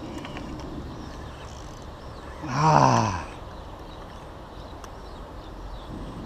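A man's voice: one short groan-like exhale that falls in pitch, about two and a half seconds in, over a steady outdoor background hiss.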